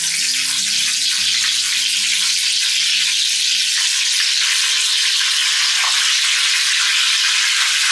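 Curry leaves and fenugreek seeds sizzling steadily in hot oil in a kadai: the tempering (tadka) for sambar.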